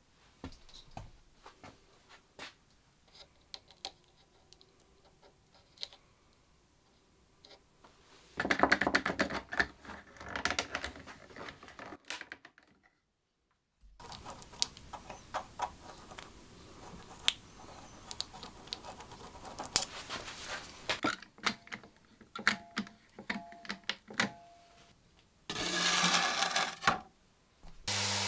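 Scattered clicks, taps and scraping of hand tools on old wood, with a louder stretch of scraping about eight seconds in. Right at the end a random orbital sander starts running with a steady hum.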